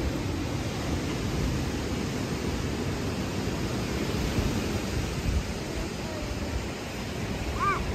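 Steady rushing of sea surf on a beach, with a short high-pitched call near the end.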